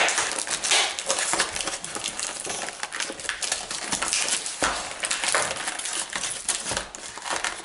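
Plastic toy packaging crinkling and clicking as it is handled and pulled at, many small crackles with a few sharper knocks.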